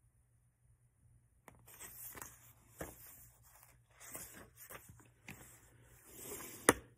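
Paperback book pages rustling as they are handled and turned, starting about a second and a half in, with scattered light clicks and one sharp click near the end.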